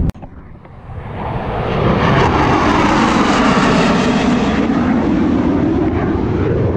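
Airplane passing low overhead: its engine noise swells up about a second in and stays loud, with the slow sweeping rise and fall in tone of an aircraft going by.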